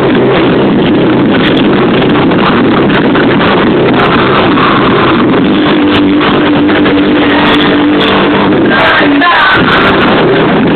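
Loud amplified live music in a dense wash of sound, with a steady held note from about halfway through for around three seconds.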